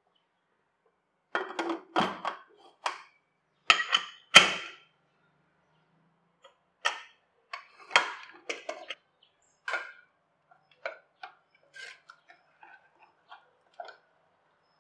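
Sharp metal clinks and knocks as a Pigeon pressure cooker's lid is handled, loudest in the first few seconds. These are followed by softer, scattered taps of a ladle mashing cooked dal in the pot.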